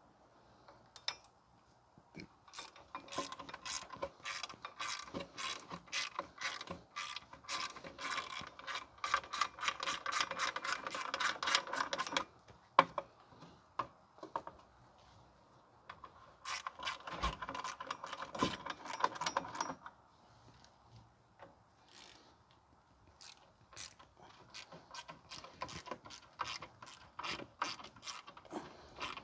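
Hand ratchet wrench clicking as bolts are turned, in three runs with short pauses between. The first and longest run quickens toward its end, and the last run is sparser.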